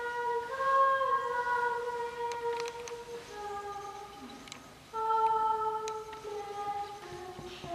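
A single woman's voice singing a slow melody in long held notes, stepping gradually downward in pitch.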